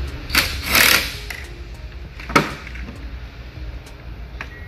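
Cordless drill-driver briefly spinning a bolt out by the car's 12-volt battery, followed by a single sharp click about two seconds later.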